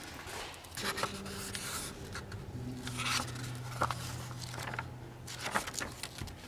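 Pages of an old hardbound book turned and flipped by hand, paper rustling in several quick sweeps.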